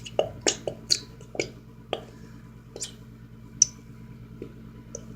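A plastic glue bottle being squeezed into a bowl: about ten irregular clicks and squishes, coming thickly at first and thinning out after about two seconds, as the glue and air sputter out.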